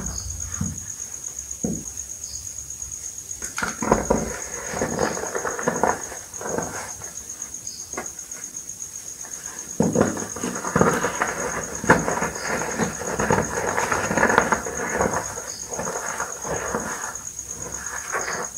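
Hands crushing and crumbling reformed gym chalk balls: dry crunching and crackling as the pressed chalk breaks and sifts to powder, with soft thuds as lumps are squeezed and dropped. The crunching is heaviest from about ten to fifteen seconds in.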